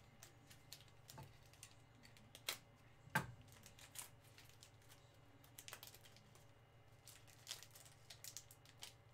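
Quiet, irregular light clicks and taps of trading card packs and cards being handled and set on a wooden table, the sharpest about three seconds in.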